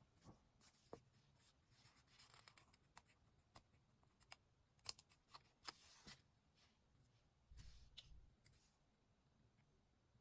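Faint paper-crafting sounds of diary decorating: scattered small clicks and taps with a few brief rustles of paper and stickers being handled, and a soft low bump about three-quarters of the way through.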